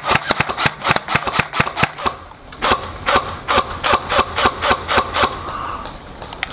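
Airsoft guns firing strings of rapid shots, about four or five a second, with a short break about two seconds in and the shots thinning out near the end.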